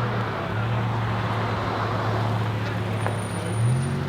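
Twin-turbo Audi R8 V10 engine running steadily at low revs, its pitch stepping up slightly near the end.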